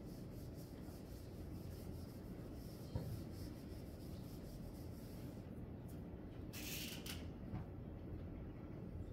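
Dry-erase marker drawing on a whiteboard: a run of faint, quick rubbing strokes, a short knock about three seconds in, and a louder, brighter marker stroke about seven seconds in.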